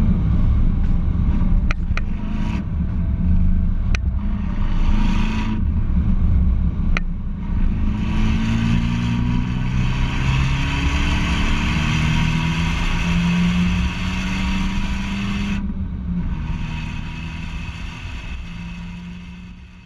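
Abarth 124 GT's 1.4-litre turbocharged four-cylinder engine pulling hard on track, its note rising and falling through the gears, with wind and tyre rush, a few sharp clicks and a fade-out near the end.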